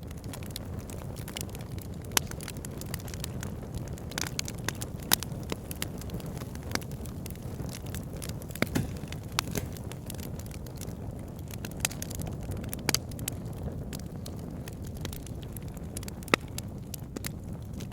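Wood fire in a fireplace crackling: irregular sharp pops and snaps over a steady low rumble of burning.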